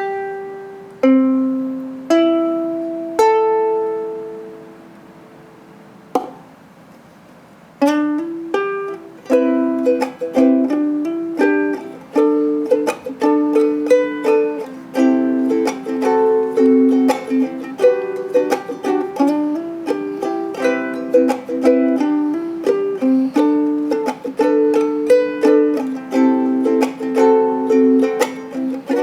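Small acoustic plucked string instrument being sound-tested: four chords struck and left to ring out in the first few seconds, then, from about eight seconds in, a continuous fingerpicked melody of quick single notes.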